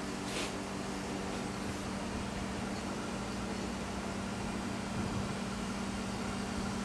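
A small electric motor running steadily with an even, low hum.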